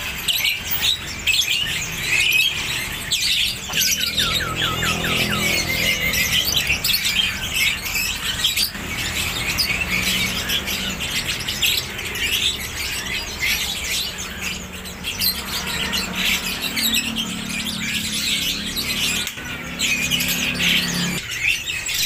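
Many caged songbirds chirping, twittering and calling at once in a crowded chorus, with a faint low hum underneath for stretches.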